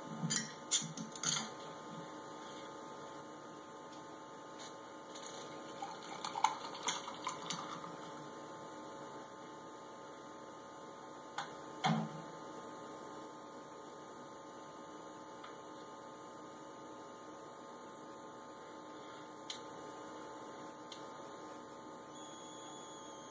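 Steady electrical mains hum, with a few light clinks and knocks of a beer bottle and glass handled on a bar counter: a handful near the start, a cluster in the middle, a sharper knock about twelve seconds in, and one small click later.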